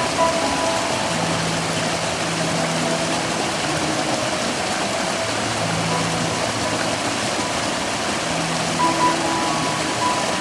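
Mountain valley stream water flowing, a steady rushing noise.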